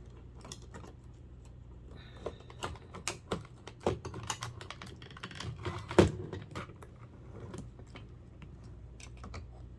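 Irregular light clicks and taps of small plastic and metal parts being handled while a clock radio is taken apart, with a sharper knock about six seconds in.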